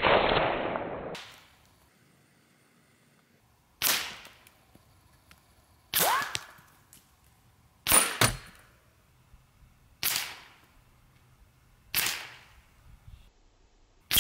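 Semi-automatic .25 caliber PCP air rifle shots, short sharp cracks about every two seconds, with pellets striking targets. The first is a longer, duller burst lasting about a second, and a falling whine trails one shot near the middle.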